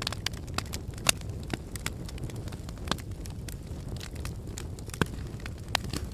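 Wood fire crackling: irregular sharp pops and snaps over a steady low rumble of burning, with the loudest pops about a second in, near three seconds, and twice around five to six seconds.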